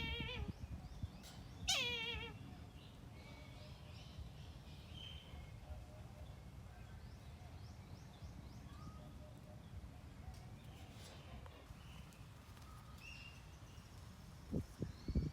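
A kite calling twice, at the start and about two seconds in: a quavering, whinnying call that falls in pitch. Then only a faint low rumble with a few thumps near the end.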